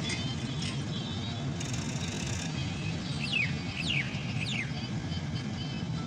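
Darshan 9000 combine harvester running steadily at work in the field, a continuous low rumble. Three short falling whistles sound over it about halfway through.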